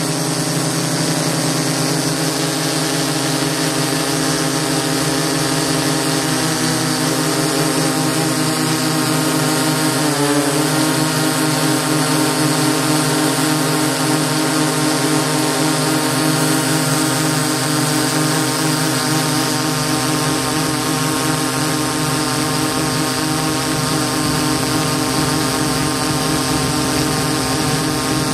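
DJI S800 hexacopter's six electric motors and propellers whining steadily in flight, heard close up from the camera it carries. The pitch wavers briefly a few times in the first half as the motors change speed.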